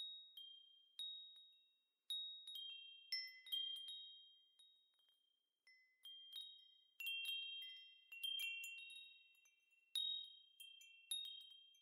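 Quiet chimes ringing: high, clear tones struck one or a few at a time, each ringing and fading away, at an irregular, unhurried pace.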